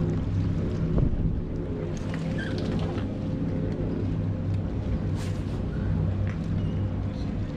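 Motorboat engine running steadily with a low hum, with a single knock about a second in.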